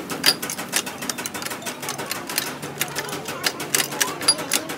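Rapid, irregular metallic clicking and tapping of a spanner worked on the bolts of a Fiat 680 tractor's gearbox top cover, several clicks a second.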